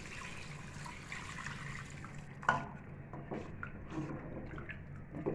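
Water pouring from a jug into a metal pot of chicken masala for about two seconds, then a sharp knock about halfway through and a few lighter clicks.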